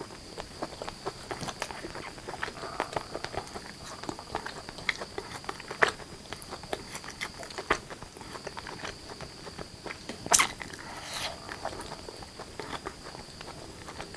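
Close-miked chewing and wet mouth sounds of someone eating chicken curry with rice: a steady run of irregular small smacks and clicks, with one sharper, louder click about ten seconds in. A faint steady high tone sits underneath.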